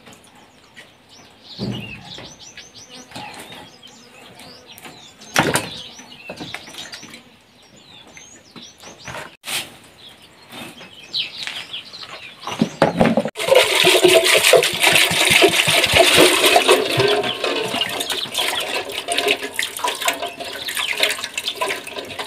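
Small birds chirping, with a few knocks, then about 13 seconds in a loud rush of running water starts suddenly and keeps going.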